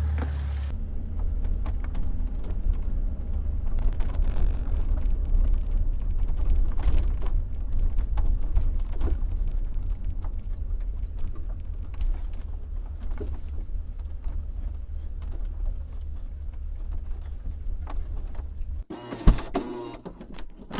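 Road and drivetrain rumble heard from the cargo area of a moving BMW X5 E53, with scattered light clicks and creaks from the body and tailgate over bumps. The tailgate squeak is much reduced now that electrical tape is wound on the latch striker, though a little creaking remains when the body flexes on uneven road. A loud knock comes right at the end.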